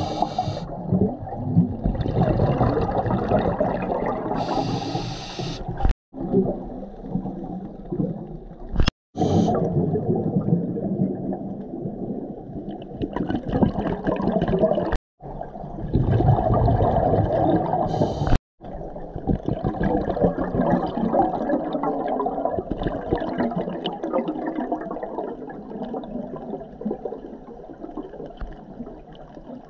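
Underwater sound from a camera on a freshwater dive: a muffled rushing and gurgling of water and bubbles that swells and fades. It drops out for an instant four times.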